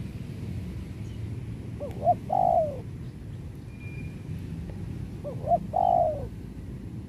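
Spotted dove cooing twice, about three seconds apart. Each phrase is a couple of short notes and then a longer falling coo: the call of a trained decoy dove.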